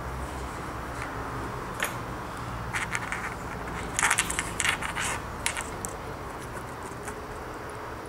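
Small clicks and scrapes of fine wire being handled against the metal pins of a plastic multi-pin connector. The loudest cluster comes about four seconds in, and a steady low hum runs underneath.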